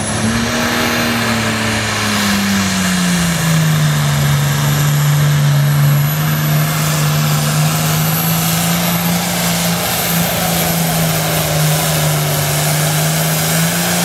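Turbocharged International tractor's diesel engine at full throttle pulling a weight-transfer sled, a loud steady drone with a high turbo whistle over it. The engine note drops a few seconds in and then holds.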